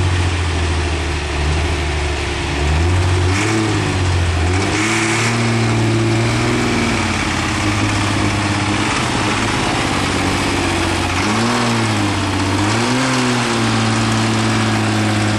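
Diesel super stock pulling tractor's engine running loud and smoking heavily after its first start of the season. It is revved up and back down several times, held at higher revs for a couple of seconds around the middle.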